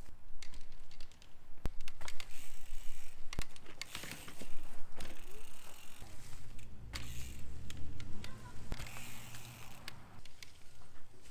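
Bicycle on a trail during wheelie practice: the rear hub ratchet ticking as it coasts, with several sharp knocks from the bike or the rider's feet landing, and a low rumble from about halfway through to near the end.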